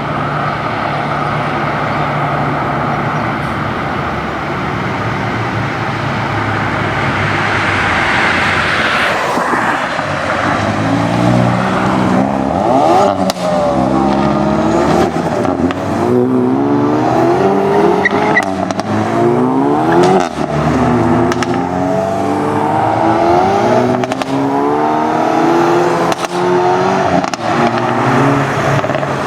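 Hyundai i30N turbocharged four-cylinder engines and exhausts: a steady engine note at first, then from about ten seconds in loud revving and acceleration, the pitch climbing and dropping again and again, with a few sharp exhaust pops.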